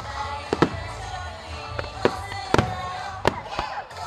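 Aerial firework shells bursting with about half a dozen sharp bangs, two close together about half a second in and more between two and three and a half seconds in. Music plays underneath.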